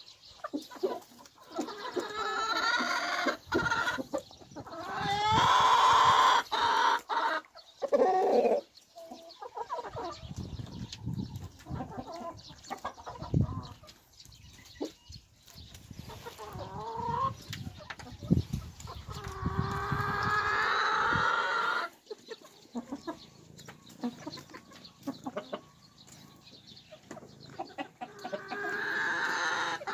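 Cheonggye hens clucking as they feed, with several drawn-out calls of one to three seconds each.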